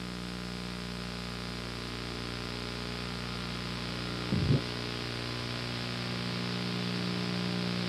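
Steady electrical hum with hiss from a blank stretch of analog videotape, broken by one short low thump about halfway through.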